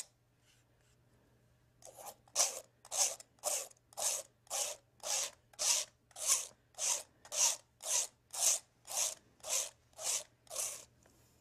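Paintbrush scrubbing thin oil paint back and forth across textured canvas, a dry scratchy stroke about twice a second. The strokes start after a pause of about two seconds and stop shortly before the end.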